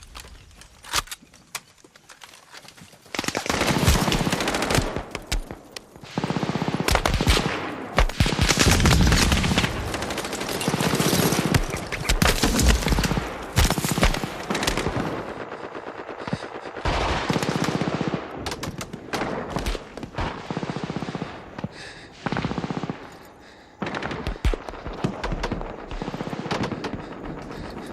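Heavy machine-gun and rifle fire in long rapid bursts. A few single shots come first, then dense firing begins about three seconds in and runs on with short lulls. It is a war-film battle soundtrack of an MG-42 nest and an attacking squad exchanging fire.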